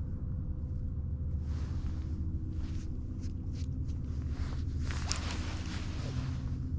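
A steady low rumble, with a few short clicks and rustles in the middle as a fishing rod and spinning reel are handled.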